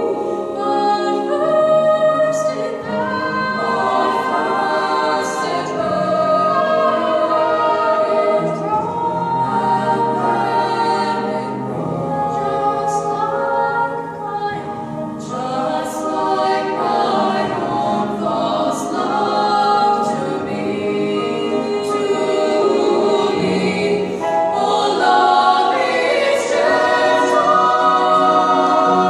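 A small women's choir singing in harmony, recorded on a phone.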